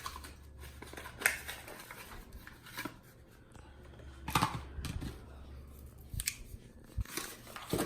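Unpacking noises as vacuum-cleaner accessories come out of their packaging: a few scattered sharp clicks, snips and rustles of plastic, the loudest about four and a half seconds in.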